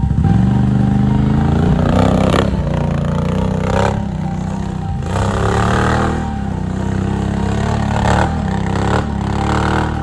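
ATV engine running hard and revving up several times, its pitch rising with each burst of throttle, as the quad accelerates through loose sand, with scraping from the tyres churning the sand.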